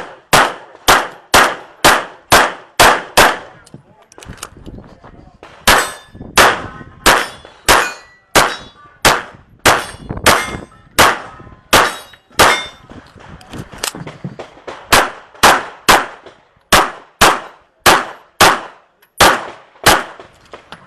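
Rapid handgun shots fired in quick strings during a timed practical-shooting stage run, with two pauses of a second or two between the strings, around a quarter of the way in and again past halfway.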